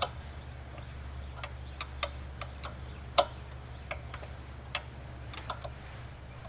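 Irregular light metallic clicks and ticks as a wrench is worked on a nut of the mini bike, loosening it so the chain can be slackened and removed. A steady low hum runs underneath.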